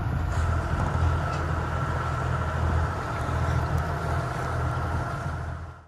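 A sailboat's auxiliary engine running lightly at low revs to charge the batteries: a steady low hum under a haze of wind and water noise. It cuts off abruptly near the end.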